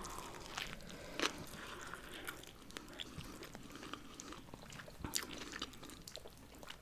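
Close-up chewing and biting of a cheeseburger and fries: irregular small wet clicks and crunches, with a couple of louder bites about a second in and near five seconds.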